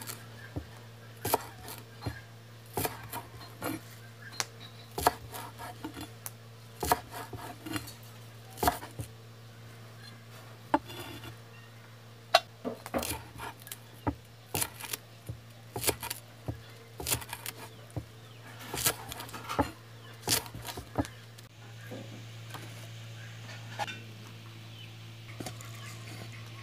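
Large kitchen knife chopping green onions on a wooden log block: irregular sharp knocks of the blade hitting the wood, about one or two a second, over a steady low hum. The chopping thins out and stops in the last few seconds.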